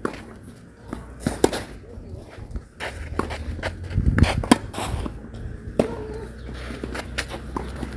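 Tennis rally on a clay court: irregular sharp pops of racket strings hitting the ball and the ball bouncing, with players' shoes moving on the clay.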